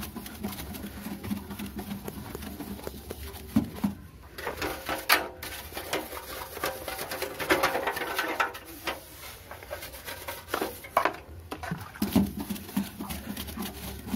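Stiff brush scrubbing the wet casing of a gas water heater in quick, irregular strokes.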